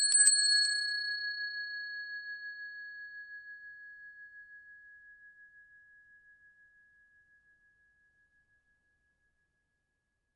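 A bell-like ding sound effect: a few quick strikes in the first moment, then one clear high note ringing out with a slight waver and fading away over about eight seconds.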